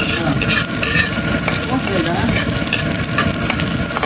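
Sliced shallots and garlic sizzling in a steel wok, stirred with a metal spatula that scrapes and taps against the pan.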